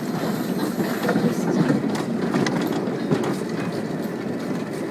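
Working replica of Stephenson's Rocket steam locomotive and its vintage wagon rolling past on the track, with scattered clicks from the wheels on the rails.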